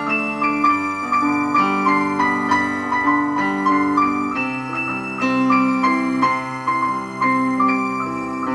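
Electronic keyboard played in an improvisation with a piano sound: held chords that change every second or so, under a line of quick melody notes.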